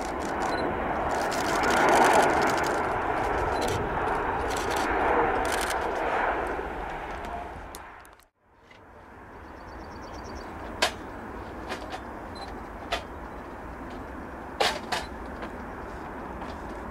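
Jet engine noise of a Boeing 767 passing low on landing approach, loudest about two seconds in and fading out about eight seconds in. After a short gap comes the quieter, steady noise of a Boeing 747-400 on approach, with a few sharp clicks.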